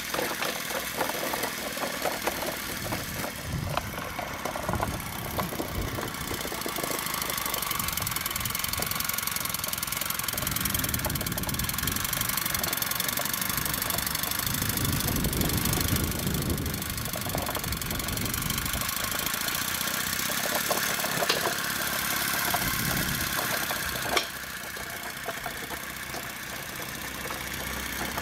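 A single-cylinder 1-inch-scale Minnie live-steam traction engine running under load, its exhaust beating quickly and steadily over a hiss of steam, while it hauls an air compressor on a small wheeled trolley that rumbles over block paving. There is one sharp knock near the end, after which the sound is a little quieter.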